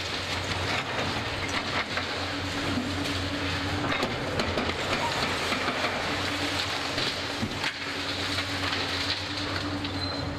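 Demolition excavator's diesel engine running with a steady hum while its attachment crunches into a concrete building, with broken concrete and debris cracking and clattering down throughout.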